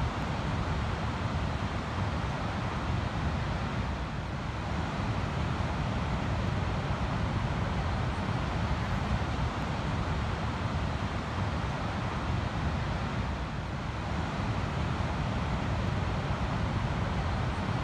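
Ocean surf breaking on a sandy beach, a steady wash of waves with no single crash standing out, with wind rumbling on the microphone.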